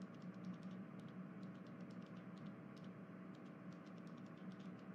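Faint room tone: a low steady hum with scattered light clicks, several a second, at irregular spacing.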